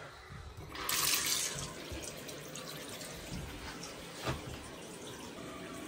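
A basin mixer tap is turned on and water gushes into the sink, loudest about a second in, then keeps running steadily and more quietly. This draws hot water so the combi boiler gets a demand. A single knock comes about four seconds in.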